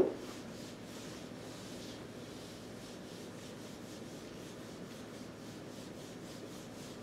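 A sharp click at the very start, such as a whiteboard marker being capped, then faint steady room noise with a light rubbing sound.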